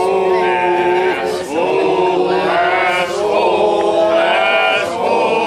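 A group of people singing a bawdy drinking song together in loose unison, loud, with long held notes.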